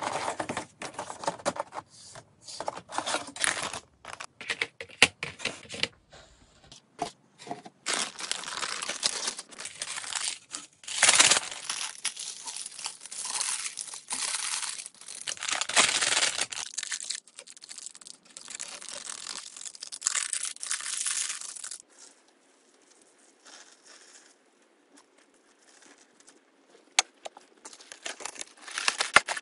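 Plastic wrapping and seasoning packets of a jumbo instant-ramen tray being torn open and crinkled, with flakes shaken out over the dry noodles. The first few seconds hold many sharp clicks and knocks of the plastic tray and lid being handled, and the rustling is quieter near the end.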